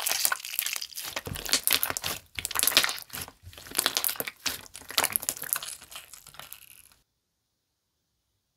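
Clear slime being squished, stretched and poked by hand, making dense sticky crackles and little pops. It cuts off abruptly about seven seconds in.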